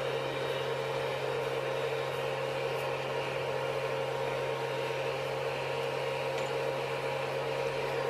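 3D printer's cooling fans running with a steady, constant whirring hum.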